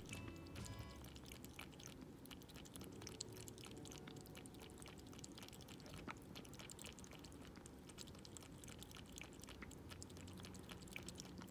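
Tortoiseshell cat eating from a bowl right by the microphone: faint, quick, wet clicks of chewing and licking.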